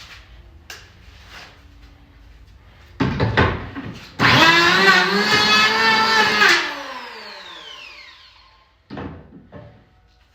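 Handheld electric woodworking tool trimming a board edge: its motor is triggered briefly, then runs for about two seconds and spins down with a falling whine once released. A click follows near the end.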